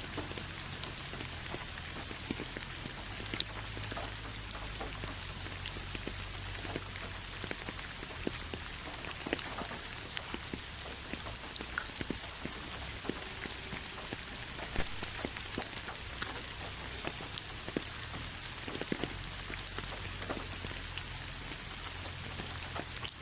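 Steady rain falling, with many individual drops ticking sharply at irregular moments over an even hiss.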